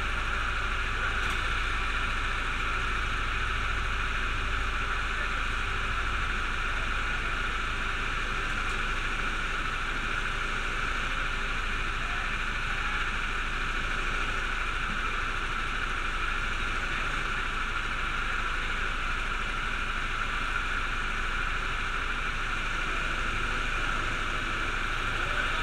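Go-kart engines idling in a steady, even drone with a constant hiss, with no revving or change through the whole stretch.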